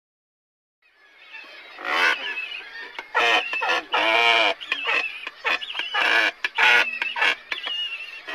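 Loud animal calls, many of them in quick succession, starting about a second in: pitched cries that glide up and down, some overlapping.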